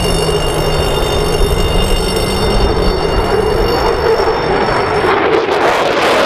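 F-16 fighter jet's Pratt & Whitney F100 turbofan, loud and steady, with high whining tones over a deep roar as it passes low. About five seconds in, the whine drops away and a broad rushing roar takes over as the jet climbs away with afterburner lit.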